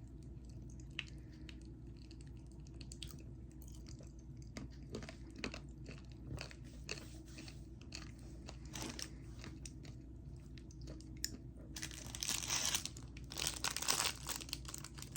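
A person chewing candy, with faint scattered crackles and clicks. Near the end comes a louder crinkling of a plastic snack wrapper.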